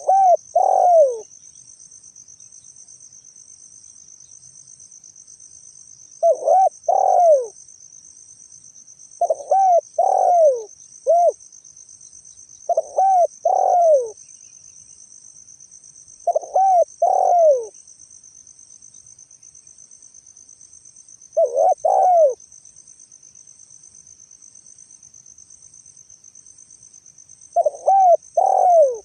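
Spotted dove cooing: seven short phrases of two or three coos, the last note sliding down, repeated every three to six seconds. A steady high insect trill runs underneath.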